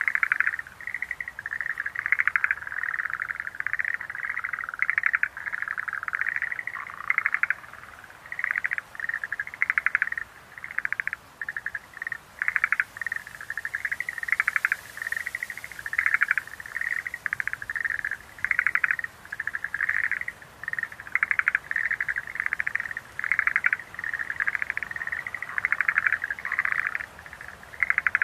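Schlegel's green tree frogs calling: short, rapidly pulsed trills repeated one after another with brief gaps.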